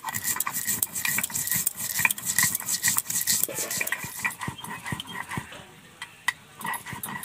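Black mustard seeds, salt and a green chilli being ground on a stone grinding slab (shil-nora). The stone pestle scrapes and grates back and forth in quick, gritty strokes.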